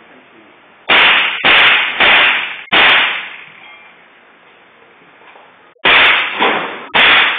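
.22 rifle firing in quick strings: four shots about half a second apart, then after a pause of about three seconds, another quick run of shots.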